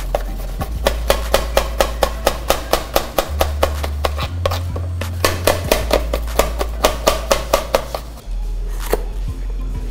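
A knife slicing green bell pepper on a cutting board, tapping the board in quick runs of about five cuts a second with short pauses. Background music with a steady bass plays under it.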